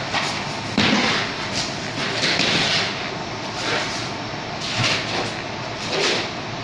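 Demolition noise: gypsum and foam wall panels being pulled off a metal stud frame, with irregular scraping and knocking and a heavier thud about a second in, over a steady rushing background.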